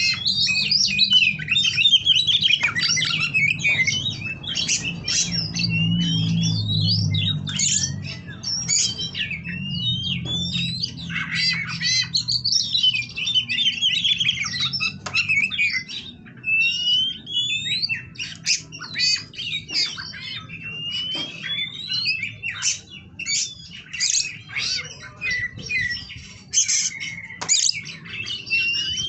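Oriental magpie-robin (kacer) singing a continuous, varied song of quick whistled phrases, rising slurred notes and harsher chattering notes.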